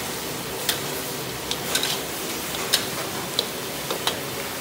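Metal spatula and chopsticks stirring a stew in a large steel wok: irregular clinks and scrapes against the pan, about eight in all, over a steady hiss.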